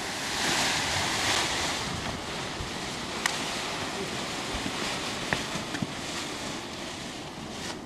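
Wind rushing over the camera microphone, a steady noise that slowly eases off, with a few light clicks.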